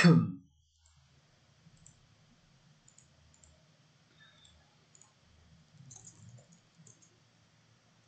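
Faint, scattered computer mouse clicks over a low hum, after a brief louder sound at the very start.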